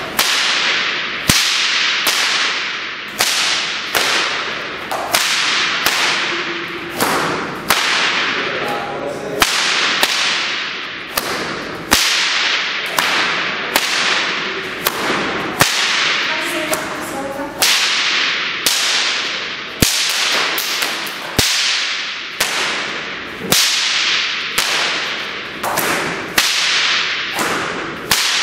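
Bullwhip cracked over and over in freestyle, a sharp crack a little more often than once a second, each one ringing out with the echo of a large hall.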